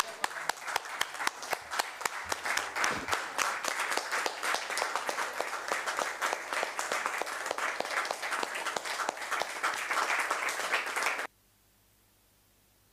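Applause from a small group of people clapping, a dense patter of individual claps, which stops abruptly about eleven seconds in, leaving only faint room tone.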